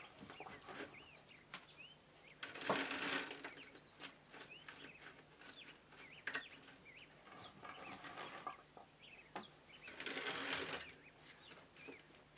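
Faint handling noises of chopped bell pepper being scooped by hand and spread over a plastic mesh dehydrator tray: soft rustling and light clicks, with two louder rustles about three seconds in and near ten seconds.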